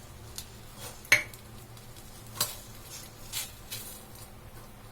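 A fork clinking and scraping against a mixing bowl as grated potato is mixed with melted ghee: a few separate clinks, the loudest about a second in.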